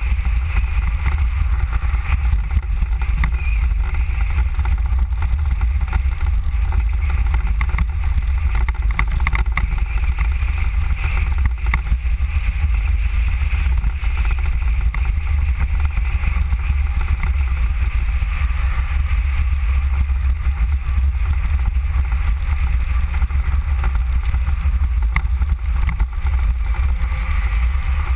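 Mango velomobile rolling along a road at speed: a steady, loud low rumble of road and wind noise through the shell, with a constant hiss and a few light clicks.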